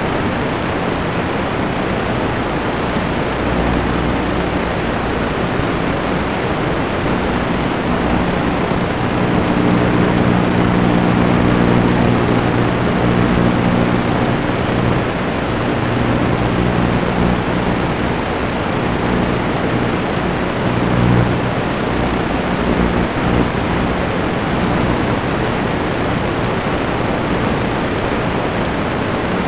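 Steady, loud hiss of an FPV quadcopter's video-link audio during flight, with a low buzzing hum underneath that swells and fades, strongest about ten to fourteen seconds in and again briefly around twenty-one seconds.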